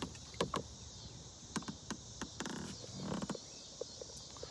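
Steady high-pitched insect chorus from the wooded riverbank, with a scattering of light knocks and clicks.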